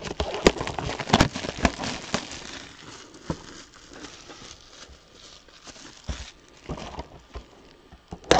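Crinkling and crackling of cellophane wrap being peeled and crumpled off boxes of trading cards, busy for the first couple of seconds, then sparser.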